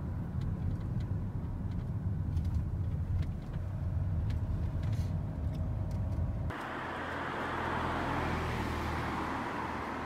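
Road noise and engine hum inside a moving car's cabin, a steady low rumble. About six and a half seconds in it cuts abruptly to a steady outdoor hiss.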